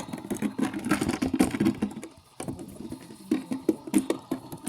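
Washing machine in its spin cycle, with a fast, irregular rattling and knocking that dips briefly about two seconds in.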